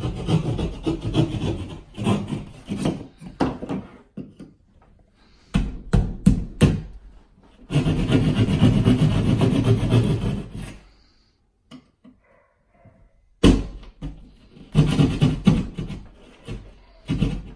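Hand drywall (jab) saw sawing through sheetrock in fast back-and-forth strokes, in several runs with short pauses in between. It is cutting out a single-gang opening for an electrical or low-voltage box.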